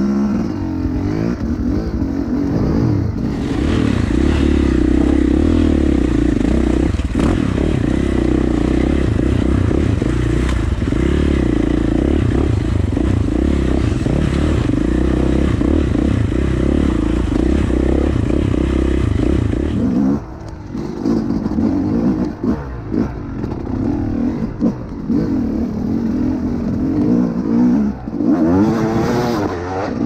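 Dirt bike engine running under way on a rocky trail, holding a steady note for about twenty seconds, then the throttle opens and shuts unevenly with dips and surges, with some clatter and scraping over rocks.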